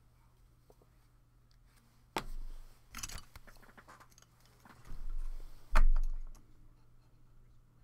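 Clacks and knocks of a trading card in a hard plastic holder being handled and set upright on a desk stand. There are a few sharp clacks, and the loudest is a thump about six seconds in.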